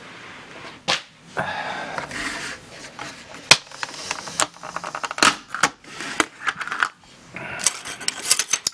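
Clear plastic takeout containers, lids and sauce cups being handled and moved on a table: a run of irregular sharp clicks and taps, with stretches of crinkling plastic.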